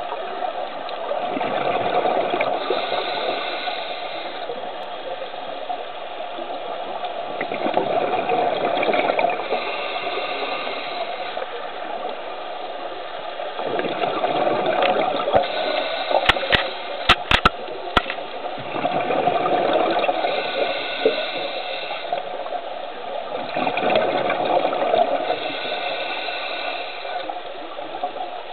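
Scuba diver's regulator breathing, heard underwater: rhythmic cycles of hissing inhalation and rumbling exhaled bubbles, about one breath every five to six seconds. A short cluster of sharp clicks comes about two-thirds of the way through.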